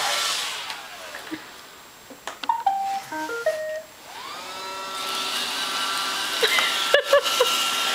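Roomba robot vacuum: its running noise dies away, it plays a short tune of electronic beep notes, then its motor spins up with a rising whine and runs steadily. A few brief clicks and blips sound near the end.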